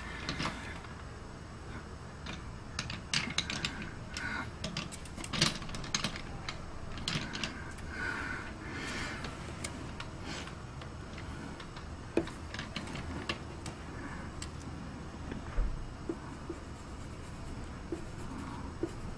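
Coloured pencil working over drawing paper, a soft scratching broken by irregular light clicks and taps as the pencil strikes and lifts from the page.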